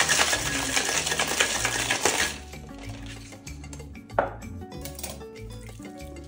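Ice rattling hard inside a metal cocktail shaker as it is shaken, stopping about two seconds in; a single sharp knock follows a couple of seconds later. Background music plays underneath.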